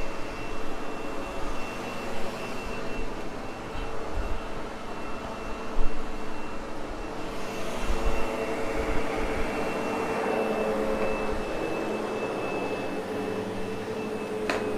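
Sebo X8 upright vacuum cleaner running steadily, its motor holding a steady high whine, with a few low thumps around the middle.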